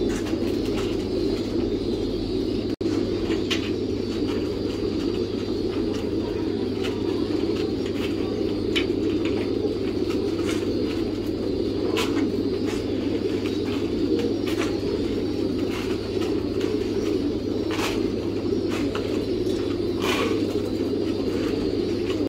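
A dense, steady chorus of many caged pigeons cooing, with scattered light clicks and taps through it.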